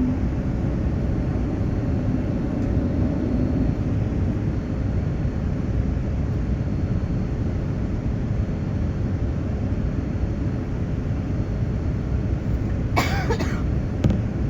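Steady cabin noise of a Boeing 787 airliner in flight, an even low rush. A brief cough comes near the end.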